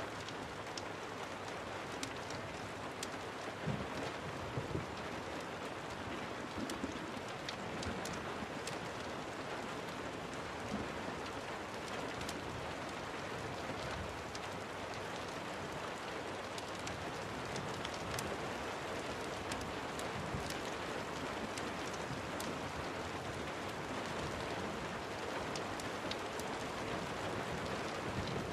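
Steady rain, with scattered sharp ticks and pops throughout and a few louder bumps about four to five seconds in.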